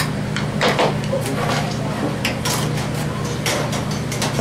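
Scattered clicks and knocks of utensils and pans being handled, over a steady low hum.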